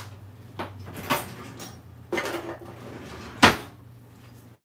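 Kitchen drawers and cupboards being opened and shut while hunting for tongs: several sharp knocks, the loudest about three and a half seconds in, over a steady low hum.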